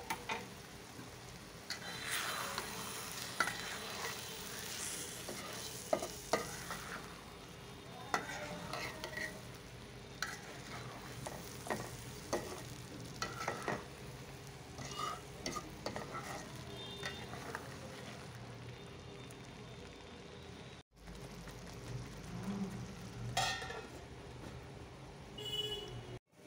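A spatula stirring and scraping spiced fish roe in a steel karai, with irregular clicks and scrapes of the spatula on the metal over a steady frying sizzle.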